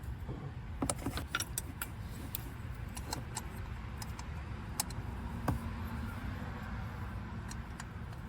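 Scattered, irregular metallic clicks and clinks of hand tools against bolts and metal parts, over a steady low hum.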